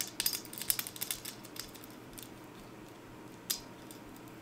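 Steel chainsaw chain clinking and rattling as it is handled: a quick run of small metallic clicks over the first second and a half, then a single click about three and a half seconds in.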